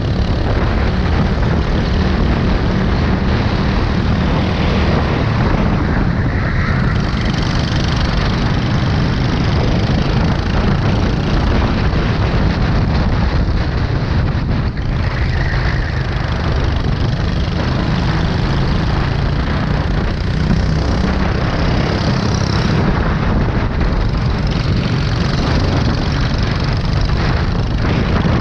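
Go-kart engine running hard at racing speed, heard from a camera mounted on the kart itself, loud and steady throughout with a dense rushing noise over the engine note.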